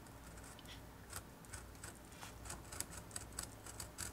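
Hobby knife blade cutting paper freehand on a wooden cutting board: faint scratchy ticks that become more frequent after about a second.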